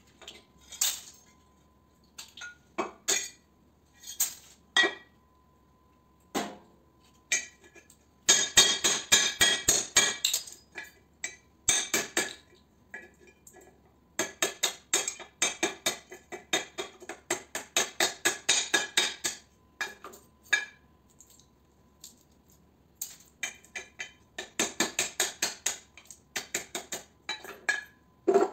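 Hammer striking scrap ballast parts against a steel plate, making sharp metallic clinks. At first the strikes come singly a second or two apart, then in runs of quick taps several a second, with short pauses between the runs.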